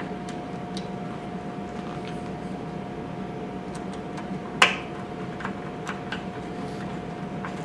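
Small clicks and ticks of a screwdriver driving screws as a strain gauge circuit board is fastened to its metal mounting bracket, with one sharper click about halfway through, over a steady background hum.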